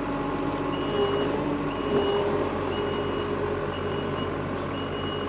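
Construction machine's backup alarm beeping about once a second while the machine moves, over its engine running steadily.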